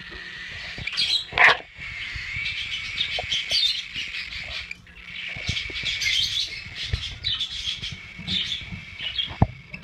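Young cockatiel chirping and twittering over and over in rapid high notes. A loud knock about a second and a half in, with smaller thumps here and there.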